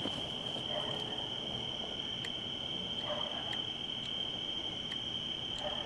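A steady, high-pitched chorus of crickets, with a few faint ticks.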